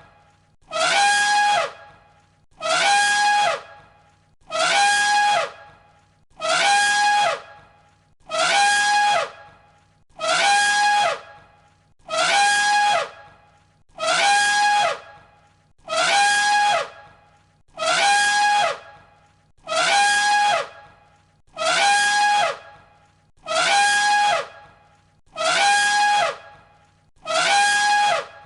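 Elephant trumpeting, the same call looped over and over: about fifteen identical blasts, each about a second long, one roughly every two seconds.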